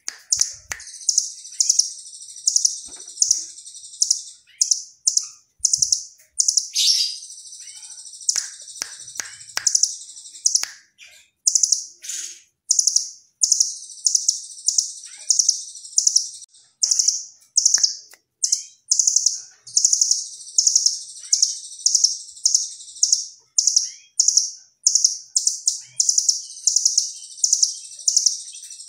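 A caged blue nuthatch singing actively: bursts of very rapid, high trills, repeated almost without pause, with quick falling chirps between them.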